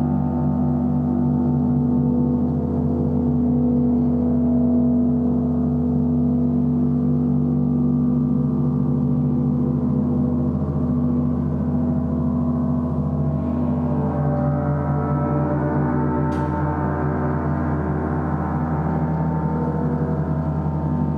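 Portable gong ringing in a steady, dense drone of many overlapping tones. Its higher tones swell a little past halfway through, and a small sharp click is heard shortly after.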